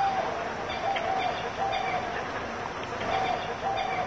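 Birds calling: a series of short notes held at one pitch, repeated every half second to second, with faint high chirps behind them over steady outdoor ambience.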